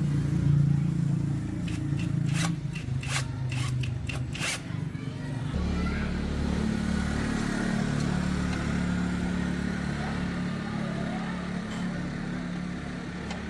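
A small electric motor running steadily, with a run of sharp clicks and scraping during the first four or five seconds; its hum changes and deepens about five and a half seconds in.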